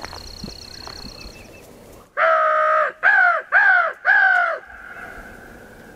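Four loud crow caws in quick succession: one longer caw, then three shorter ones.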